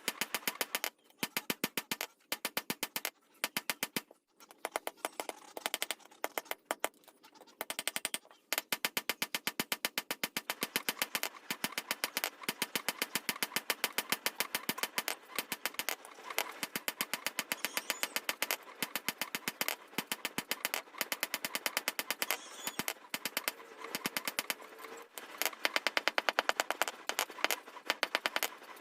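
Rapid, rhythmic hammer blows on hot steel as a dao blade is forged, several strikes a second with brief pauses between runs.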